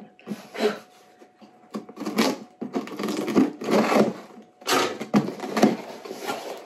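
Scissors cutting the packing tape on a corrugated cardboard shipping box, then the cardboard flaps being pulled open: a run of scratchy scrapes and crackles, with a longer rasping cut about three seconds in.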